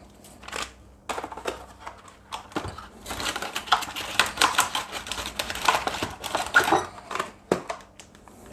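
A foil spice packet being handled: scattered clicks, then a few seconds of dense, rapid crinkling about three seconds in, and a couple of last clicks near the end.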